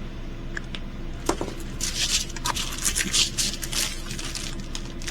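Plastic packaging of a diamond painting kit crinkling and rustling as it is handled, with a few sharp clicks about a second in, over a low steady hum.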